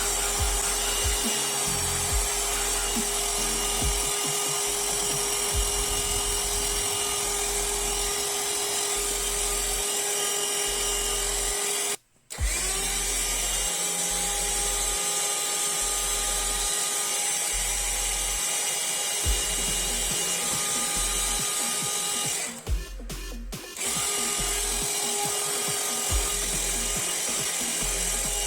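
Small vacuum cleaner motor running steadily with a constant whine while vacuuming a laptop's heat vents to clear dust that makes it overheat. It cuts out briefly about twelve seconds in and spins back up.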